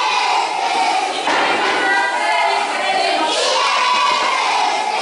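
A group of young children singing and shouting together in a ring game, many voices at once, with louder shouted bursts about a second in and again past three seconds.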